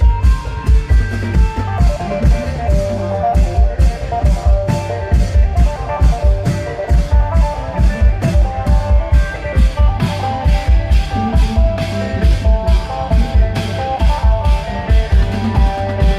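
Isan klong yao procession band playing through a loudspeaker system: drums keep a fast, steady beat under an amplified plucked-string melody.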